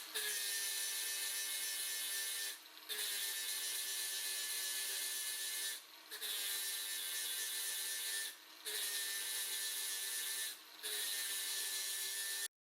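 Electric arc welding on stainless steel bolts: a steady crackling hiss laid down in short runs, with brief pauses between beads about every two to three seconds. It cuts out abruptly near the end.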